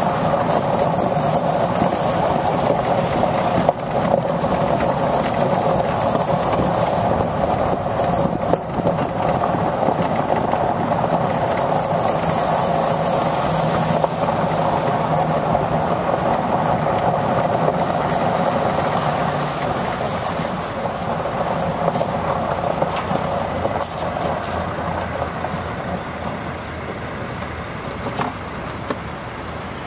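Medium-duty GMC C7500 dump truck's engine idling steadily, a little quieter near the end.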